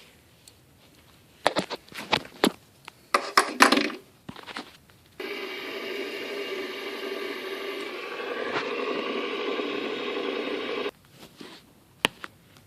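A few clicks and scrapes of handling, then a steady humming drone that switches on abruptly, runs for about six seconds and cuts off suddenly. It is an improvised imitation of a car engine idling.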